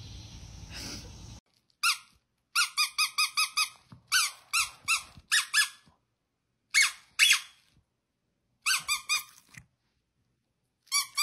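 Squeaky dog toy squeaked in quick runs: short, high, rising squeaks, several in a row, with pauses of silence between the runs. Before them there is about a second of faint background hiss.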